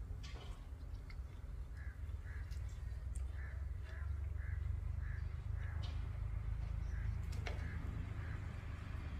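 A bird calling repeatedly: a run of about nine or ten short, evenly spaced calls, roughly two a second, from about two to seven seconds in. Under it runs a steady low rumble, with a few sharp clicks.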